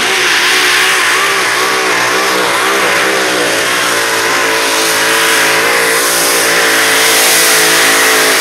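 Mini pulling tractor's engine at full throttle during a pull. The revs waver up and down for the first few seconds, then hold steady and climb slightly.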